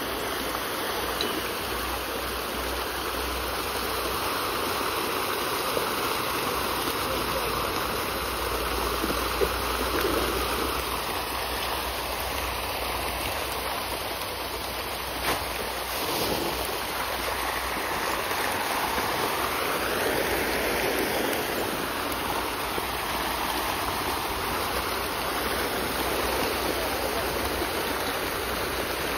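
A dense crowd of farmed fish thrashing at the pond surface in a feeding frenzy as feed is thrown in, a steady rushing churn of splashing water with a couple of sharper slaps.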